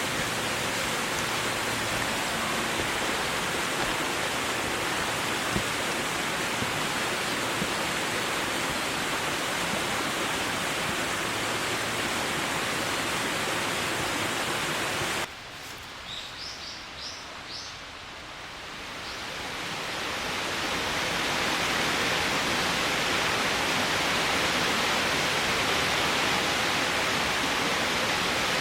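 Steady rush of flowing water that cuts off suddenly about halfway through. A few short, high bird chirps follow in a quieter stretch, and then the water sound swells back up over a few seconds.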